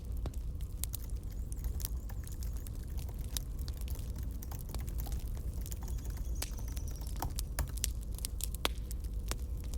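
Campfire crackling: irregular sharp pops and snaps of burning wood over a low, steady rumble of the fire.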